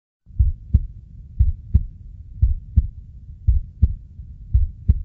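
Slow heartbeat sound effect: a double thump (lub-dub) about once a second over a low, steady hum.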